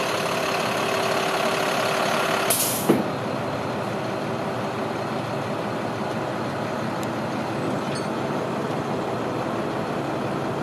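International 4300 box truck's diesel engine idling steadily, with a short hiss about two and a half seconds in that ends in a sharp knock.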